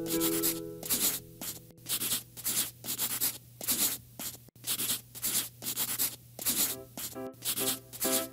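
Scribbling strokes of coloring in, a quick back-and-forth rubbing at about three strokes a second, over background music. The music holds long notes at first and turns to short repeated notes near the end.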